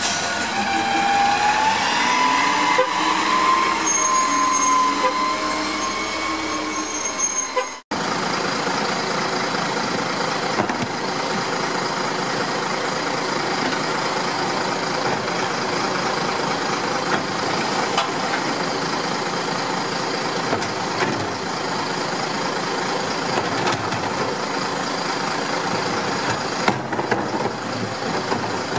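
Autocar ACX front-loader garbage truck's engine revving up and holding high while its lift arms work overhead. About eight seconds in it cuts to a Pak-Mor rear-loader garbage truck running steadily with light knocks as wheeled carts are tipped into its hopper.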